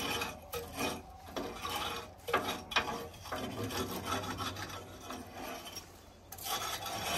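Tar deposits being scraped out of the grate cells of a solid-fuel central-heating boiler, in irregular rasping strokes. The tar builds up when the boiler runs below about 45 degrees.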